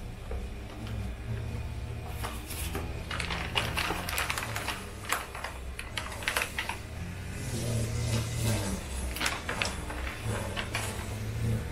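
Kitchen utensils and cookware being handled: scattered light clicks and knocks over a low steady hum.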